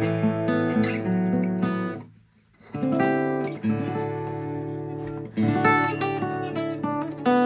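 Seagull Folk steel-string acoustic guitar being played, chords strummed and notes picked and left to ring. The playing stops briefly about two seconds in, then resumes with new strummed chords.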